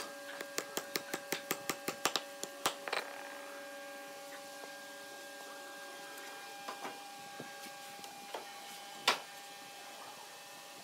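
A quick run of about a dozen sharp clicks or taps, roughly four or five a second, during the first three seconds, over a steady machine hum. A few faint knocks follow as hardwood pieces are handled, with one loud sharp knock about nine seconds in.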